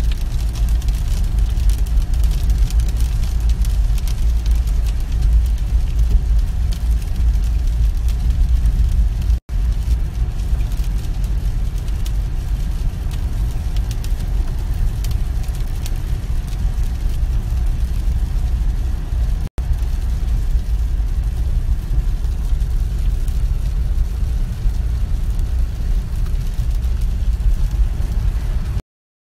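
Car driving on a wet road in the rain, heard from inside the cabin: a steady low rumble of engine and tyres with an even hiss of rain and spray. The sound drops out for an instant twice and cuts off just before the end.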